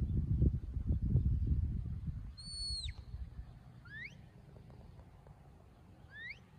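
Shepherd's whistle commands to a working sheepdog. First comes one high held note that drops away sharply, then two short rising whistles a couple of seconds apart. Wind rumbles on the microphone for the first couple of seconds.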